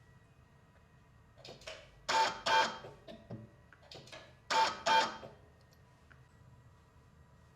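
Two pairs of sharp clacks with a brief ringing tail, the second pair about two and a half seconds after the first. Fainter clicks sound in between.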